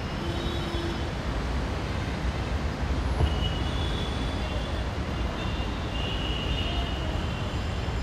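Steady city road traffic, a low rumble of passing cars and vans, with a few faint high tones now and then.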